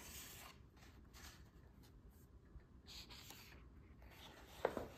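Pages of a hardcover picture book turned by hand: faint paper rustles and swishes, with one short, sharper sound near the end.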